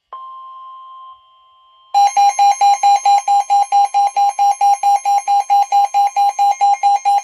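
Emergency weather-radio alert tone: a steady warning tone of about 1 kHz, the alarm that precedes a warning broadcast, joined about two seconds in by a loud rapidly pulsing beep of about five beeps a second.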